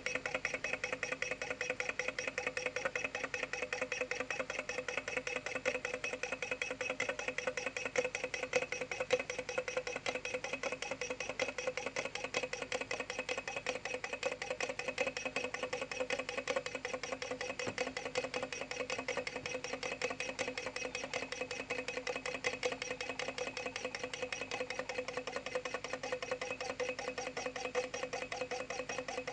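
Low-temperature Stirling engine running fast, a rapid, even mechanical clatter that holds steady throughout.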